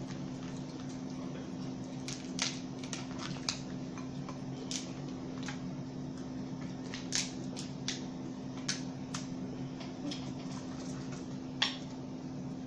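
Snow crab legs being cracked and picked apart by hand: scattered sharp cracks and clicks of shell, with eating sounds, over a steady low hum.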